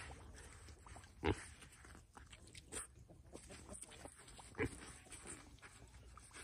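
Piglets rooting in wet mud, the nearest one's snout working the soil close to the microphone, with two short grunts: one about a second in, the other past the middle.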